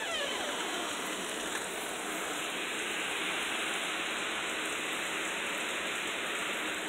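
Loud, steady rain falling outside, an even hiss of rain on the ground and surfaces.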